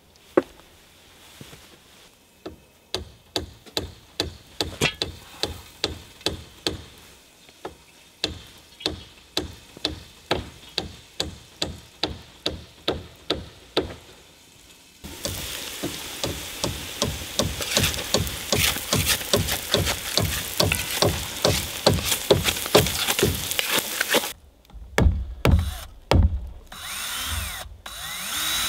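Woodworking sounds: a tool working wood in regular strokes, about two a second, turning louder and more continuous about halfway through. Near the end a power drill runs in short spurts, its pitch rising and falling.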